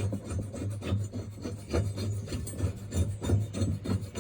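Mower blade nut being turned off its threaded spindle bolt, a repeated metal-on-metal rasping with each turn, roughly two or three strokes a second.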